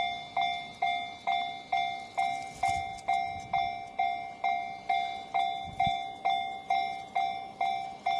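Japanese railway level-crossing warning bell ringing its electronic 'kan-kan' alarm: one bell-like tone struck evenly about twice a second, each strike fading before the next.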